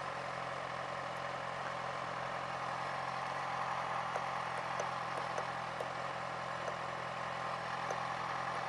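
Sport motorcycle engine idling steadily, heard through a helmet-mounted mic, with a few faint ticks.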